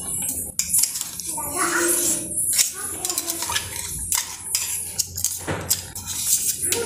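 Metal utensil clinking and scraping against a small steel bowl as crushed soaked figs are knocked out into a steel pan of boiling milk: a series of sharp metallic clicks.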